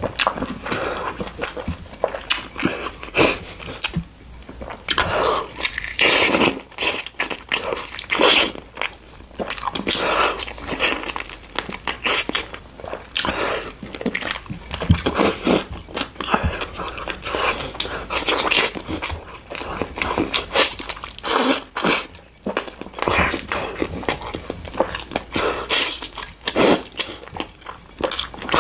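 Close-miked eating: a person chewing and biting food, with crunching, heard as a dense, irregular run of short crackles and clicks.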